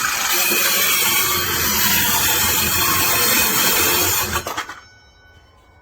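A cordless 20V 4-1/2 inch mini circular saw cutting through a piece of wood, a loud steady buzz of blade in wood that stops about four seconds in.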